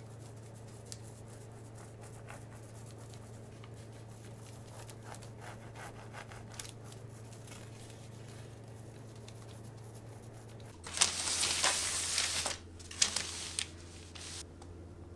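A knife scoring shallow cuts into a cocoa sponge sheet lying on baking paper: faint scrapes and taps over a low steady hum. About eleven seconds in the baking paper rustles loudly for over a second, then a few shorter rustles follow.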